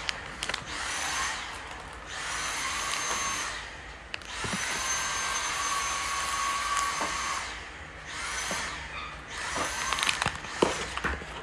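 Steady machine-like whooshing with a faint high whine, swelling and fading in stretches of two to three seconds. A few sharp crinkles and clicks come near the end as a plastic press-on nail packet is handled.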